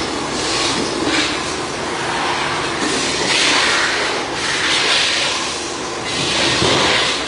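Sheet-metal workshop machinery running continuously, a loud rough noise that swells into a harsh metallic hiss every second or so.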